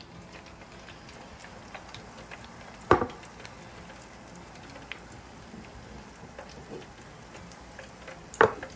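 Potatoes deep-frying in the basket of an electric deep fryer: the hot oil bubbles with a steady fizz of small crackles and ticks. Two loud sharp clicks stand out, about three seconds in and near the end.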